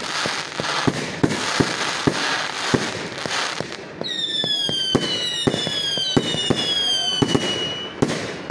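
Fireworks display: repeated sharp bangs over a dense fizzing crackle, then from about halfway several overlapping whistles, each falling slightly in pitch, as shells climb. The whistles stop shortly before the end, with more bangs following.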